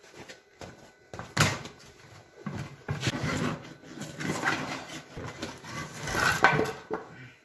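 Tractor tire and steel rim being handled while the rubber inner tube is pushed inside the tire: irregular knocks and thumps with rubber scuffing. There is a sharp knock about a second and a half in, and the loudest knocks come about six seconds in.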